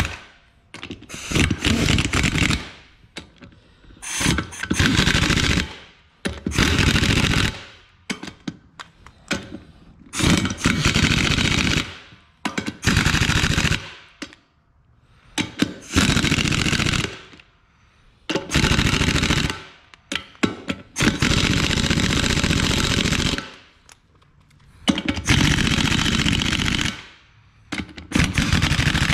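Pneumatic impact wrench hammering in about a dozen short bursts of one to two seconds, with pauses between, as it runs down the nuts on a wheel's bead-lock ring a little at a time.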